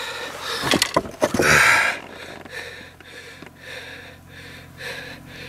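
A few light clicks and knocks, then a short, loud breath from the person holding the fish about one and a half seconds in, followed by faint steady outdoor background noise.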